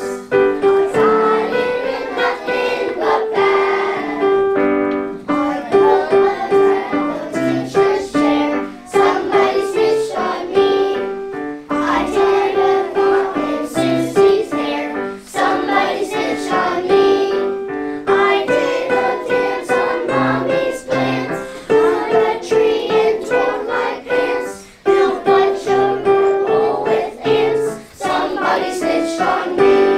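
A class of young children singing a Christmas song together, accompanied by piano.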